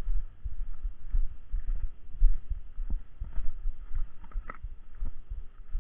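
Irregular low thumping rumble of wind buffeting a small camera's microphone, with a few light clicks of the camera being handled.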